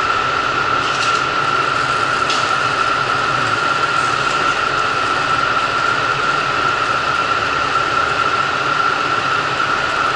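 KiHa 85 diesel railcar standing at the platform with its engines idling: a steady mechanical hum with an even, high whine over it.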